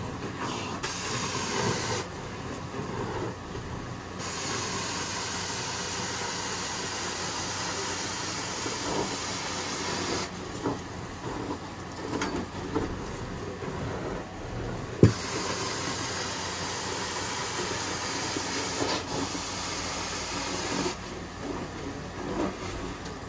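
Hot water extraction carpet-cleaning wand hissing as it sucks water out of the carpet, in strokes several seconds long with quieter gaps between them. A single sharp knock about 15 seconds in.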